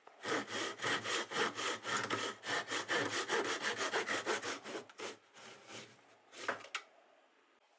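Hand saw cutting hardwood in quick, rhythmic back-and-forth strokes. It slows to a few last strokes and stops about two-thirds of the way through.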